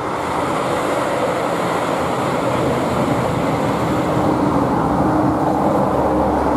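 A four-car JR Shikoku 2700 series diesel multiple-unit express passes close by, with diesel engines and wheels on rails making a steady noise that grows louder. A steady engine note comes in about four seconds in.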